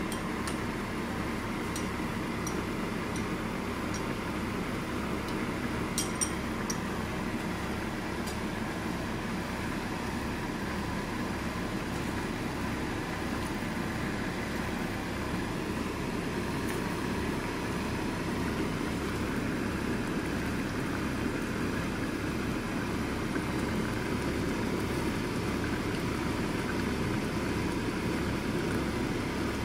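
Pan of tofu simmering in broth on an induction cooktop: a steady hum and hiss with an even low pulsing underneath, and a few light clicks about six seconds in.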